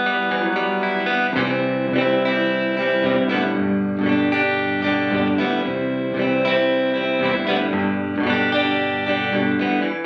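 Electric guitar played through a Fender Reflecting Pool delay and reverb pedal: sustained notes and chords that ring on and overlap, with lower notes joining about a second in.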